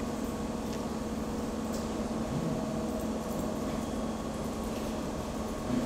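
Steady room hum with a few faint clicks.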